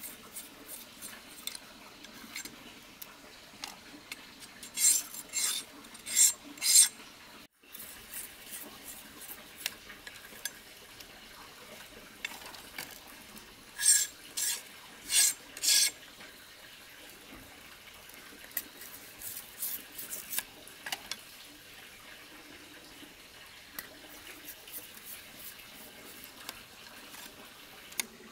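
A machete-style knife scraping along thin green bamboo strips to shave and split them: two runs of four quick scraping strokes, about five seconds in and again about fourteen seconds in, with light clicks and rustles of the strips in between.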